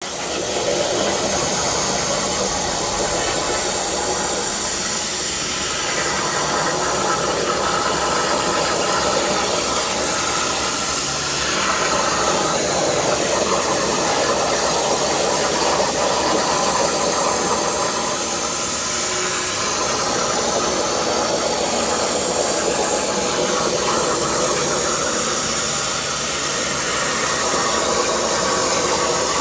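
CNC plasma cutting machine cutting sheet metal: the plasma arc gives a loud, steady hiss.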